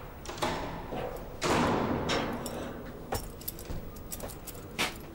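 Scattered light clicks and soft knocks, with a short rustling sound about a second and a half in and a quick run of sharp clicks in the middle.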